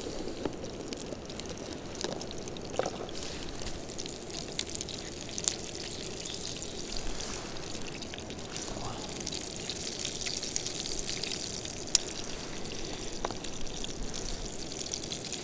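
Fish cutlets frying in oil in a small pan over a camp flame: a steady sizzle with scattered pops and crackles.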